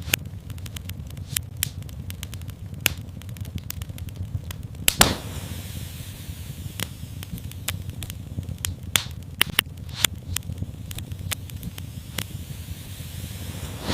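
Fire crackling in a fireplace: frequent sharp pops over a low steady rumble, with one louder pop about five seconds in followed by a brief hiss.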